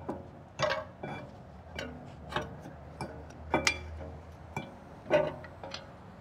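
Light metallic clinks and taps, about a dozen at irregular spacing, some ringing briefly, as a rear brake caliper carrier is held against the hub and its two new mounting bolts are started by hand.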